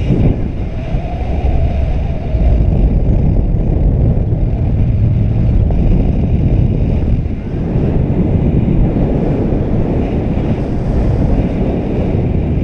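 Wind rushing over a GoPro's microphone in paraglider flight: a loud, steady, low rumble of airflow buffeting.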